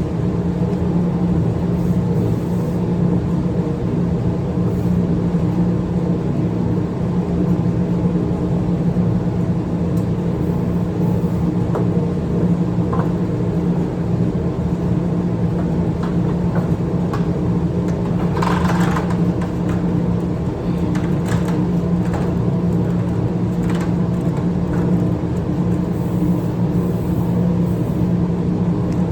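A steady machine hum with one strong low pitch that holds even throughout, with a few faint clicks and a short hiss about two thirds of the way through.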